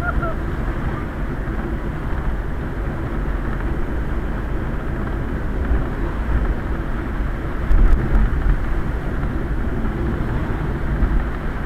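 Steady low rumble of a Quest velomobile rolling on a wet road, heard from inside its shell. There is a brief louder bump a little past the middle.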